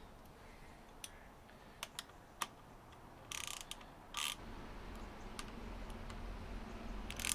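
Hand work on motorcycle handlebar controls and a plastic handguard: a few sharp separate clicks, then two short scraping rasps about three and four seconds in, and another right at the end.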